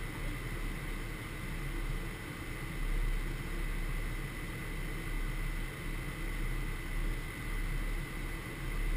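Steady flight-deck noise of a Gulfstream G550 business jet in flight: a constant rush of airflow and engine noise with a low rumble that swells and fades, and a thin steady high tone.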